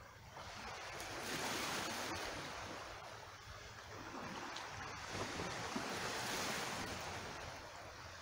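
Shallow water washing over a rocky, cobbled shore, swelling twice and easing off again.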